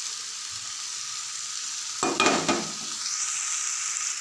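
Cabbage, potatoes and eggplant sizzling in oil in a metal wok, stirred with a metal spatula, with one louder scrape of the spatula against the pan about two seconds in.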